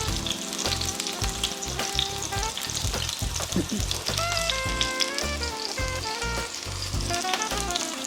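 Ahi tuna steak searing in a very hot skillet with avocado oil: steady oil sizzle and crackle. Background music with a bass line and a melody plays along with it.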